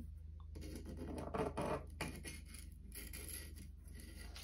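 A hand tool scraping dried glue off the broken edge of a mug in a run of repeated strokes, strongest about a second and a half in.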